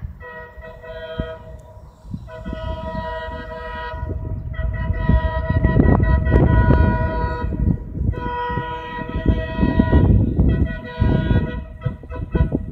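Horn of an approaching CKD8H diesel locomotive sounding about five long blasts, each a chord of several notes, over a heavy low rumble that grows louder from about four seconds in.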